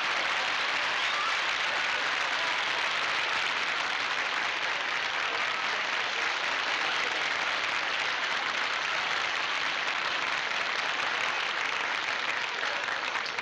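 Studio audience applauding steadily for a guest star's entrance, dying down at the end.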